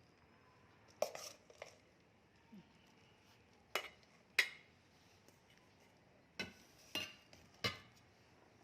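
A spoon knocking and scraping on a bowl and plate about seven times at irregular intervals while bhel is served out.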